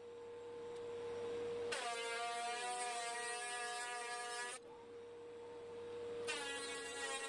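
Benchtop thickness planer running with a steady whine. About two seconds in a board passes through the cutterhead for about three seconds, adding cutting noise and a wavering whine as the motor takes the load, and another pass starts near the end.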